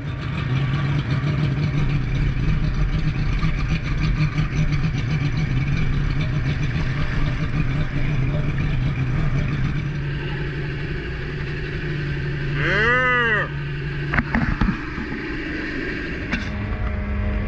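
Mercury 2.0-litre V6 two-stroke outboard running steadily at speed on a sport boat, with water rushing past the hull. Near the end a short call rises and falls in pitch over about a second, followed by a few knocks.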